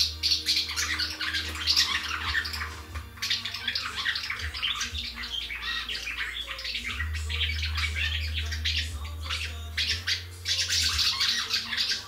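Swallows twittering, a dense run of rapid chirps without pause. A steady low hum sits underneath for the first few seconds and again through the second half.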